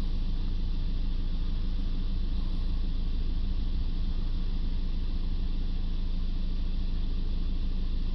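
Ford 2.2-litre diesel engine idling steadily, heard from inside the cab.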